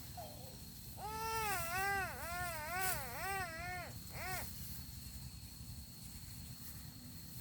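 A young child crying: one long wavering wail starting about a second in and lasting about three seconds, then a short cry.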